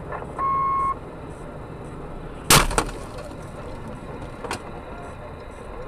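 A hard object strikes the car's windshield with one loud sharp crack about two and a half seconds in, cracking the glass, with a smaller tick about two seconds later, over steady road noise inside the car. A short electronic beep sounds just after the start.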